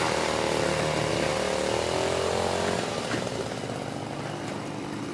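A small engine running steadily in the background, its pitch drifting slightly, easing a little after the middle.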